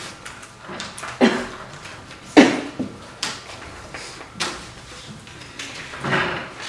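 Classroom handling noise: scattered knocks and scrapes of desks, chairs and things being moved on them, about half a dozen separate sounds with the loudest about two and a half seconds in.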